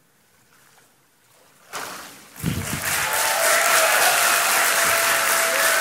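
A short splash of water from the baptistry a little before two seconds in, then the congregation bursts into loud applause with a few long whoops over it.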